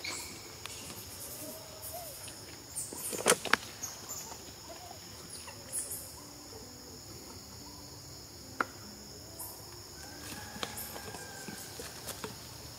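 Steady high-pitched insect chorus droning without a break, with a few sharp clicks, two loud ones about three seconds in and another past eight seconds.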